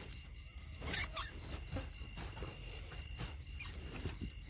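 An insect chirping steadily in the field, a short high note repeated about two to three times a second over a thin continuous high tone. A few brief rustles and knocks about a second in and again near the end.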